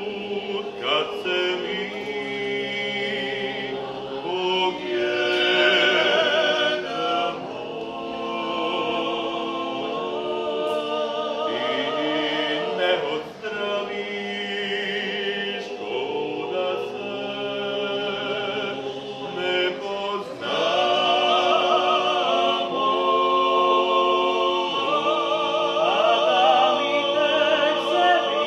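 Background music of classical singing: long held notes with vibrato.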